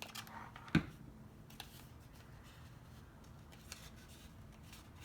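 Cardstock paper petals being handled and pressed into place, with faint rustles and small clicks and one sharper knock just under a second in.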